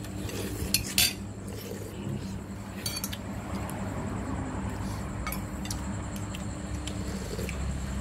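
Cutlery clinking and scraping against bowls and dishes during a meal, with a few sharp clinks, the loudest about a second in.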